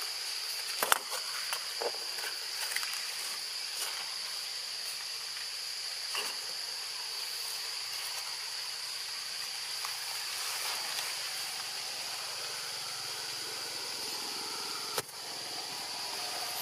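Steady high-pitched chorus of insects in tropical forest, with a few sharp clicks and knocks, the loudest about a second in and another near the end.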